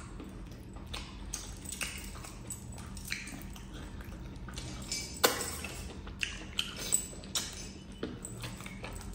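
Close-miked eating sounds: chewing and mouth smacking while a sauce-covered chicken leg piece is pulled apart by hand. A run of short wet clicks and squelches, the sharpest about five seconds in.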